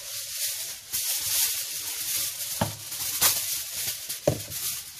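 A sheet of aluminium foil being handled and crinkled, a continuous papery rustle with two sharper crackles, one past halfway and one near the end.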